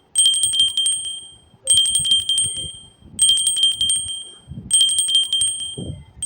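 A high, bell-like ringing trill that repeats about every second and a half, each ring lasting just over a second, with faint low murmuring underneath.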